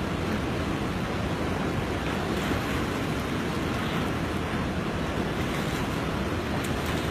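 A river in flood, its fast water rushing in a steady, even noise with no breaks.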